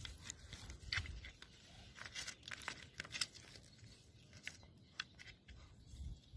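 Faint, scattered clicks and crackles of a small dog's paws moving over loose stones and through grass.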